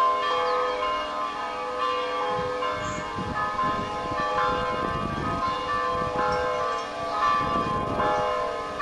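Orthodox church bells ringing: several bells of different pitch struck in a quick overlapping peal, each tone ringing on under the next strikes, with a low rumble underneath from about two seconds in.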